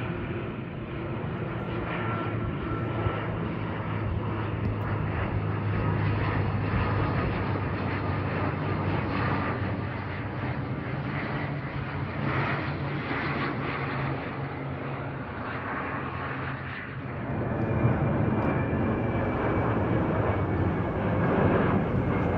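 A twin-engine turboprop airliner flying low overhead, its engines and propellers droning steadily with a low hum. About 17 seconds in, the sound cuts abruptly to the engine noise of a twin-jet airliner passing overhead.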